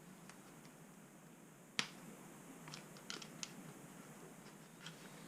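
A sharp click, then a few lighter clicks a second or so later and one more near the end: the landing gear of a small foam RC warbird being pushed and clicked into its mount by hand.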